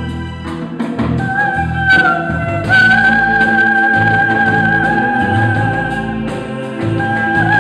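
A live band playing a song, with drums, bass and synthesizer keyboard under a long held high note that starts about a second in and lasts until near the end.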